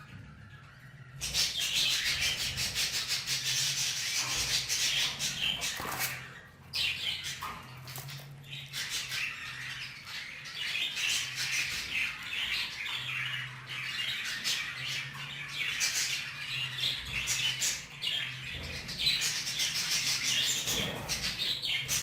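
Budgerigars chirping and chattering in a rapid, continuous warble that starts about a second in, with a low steady hum underneath.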